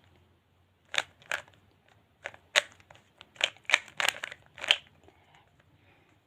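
Layers of a 3x3 Rubik's cube being turned by hand: a run of about nine sharp plastic clicks at uneven intervals.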